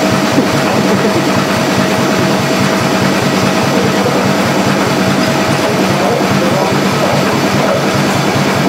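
An antique stationary engine running fast and steady, driving an old generator at about 580 to 590 RPM. Its rapid, even beat of firing strokes sits under a steady hum, with a thin steady whine that stops about seven seconds in.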